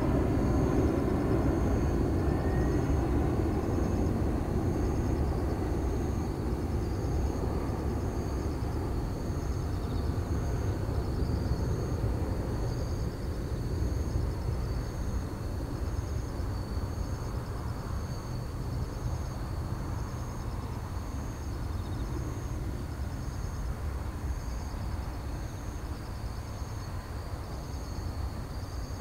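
Four-engined Boeing 747-400 freighter on final approach passing overhead, its jet engines making a deep, steady rumble that slowly fades as the aircraft flies away.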